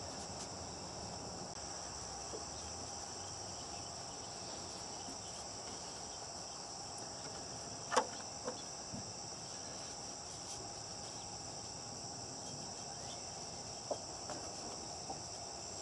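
Steady high-pitched chirring of insects. A sharp click about halfway through and a few softer taps near the end come from hands handling the wiring around the diesel engine.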